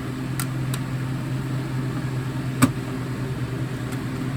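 A few light clicks and one sharper knock about two-thirds of the way through, from plastic smoke alarm housings being handled, over a steady low hum.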